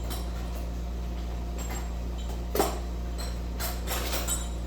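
Metal sockets clinking as a socket set is searched for the right size, with one sharp clink about halfway through and a few lighter ones near the end.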